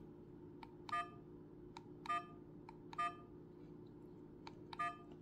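Apeman C450 dash cam's buttons being pressed: four times, a faint click followed by a short electronic beep from the camera as it steps through its menu.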